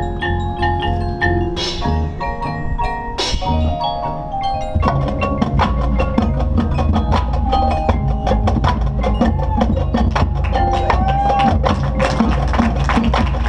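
Marching band music: the front ensemble plays sustained mallet percussion notes, with two rising shimmering sweeps. About five seconds in, the full band enters louder, with drums striking rapidly under the winds.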